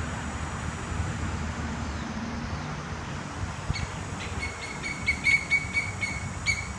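Martial eagle calling: a quick series of about ten short, high notes, three or four a second, starting a little past halfway. A steady low rumble lies under it.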